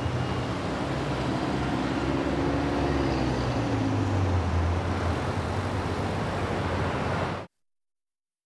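Street traffic noise, a steady rumble of vehicles, that cuts off suddenly about seven and a half seconds in.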